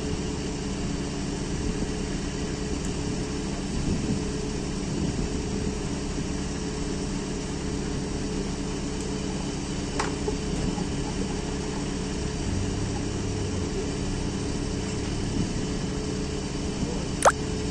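Steady drone of the tire-handler lift truck's diesel engine running at idle. Two sharp clicks cut through it, one about ten seconds in and a louder one near the end.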